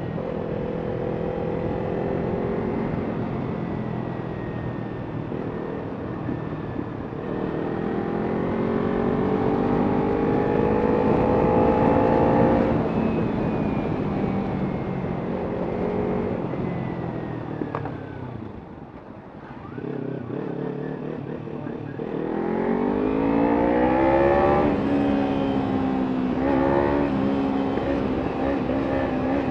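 Kawasaki Ninja 300's parallel-twin engine, breathing through an Arrow exhaust, accelerating hard with its pitch rising and falling back as it shifts up through the gears. It eases off and goes quieter a little past the middle, then pulls up through the gears again near the end.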